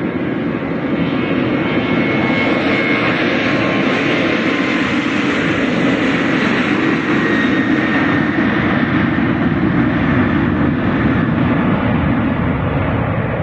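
Jet airliner passing with its engines running, a dense rushing noise with a faint high whine that swells toward the middle and eases off near the end.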